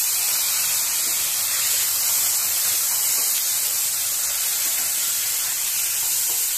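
Chopped tomatoes sizzling in hot oil in a kadai with sautéed onions and green chillies: a steady hiss as their juice hits the hot pan.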